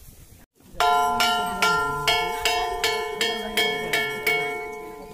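Temple bell rung rapidly, about ten strokes in quick succession with the same ringing pitch each time, then its ringing dies away.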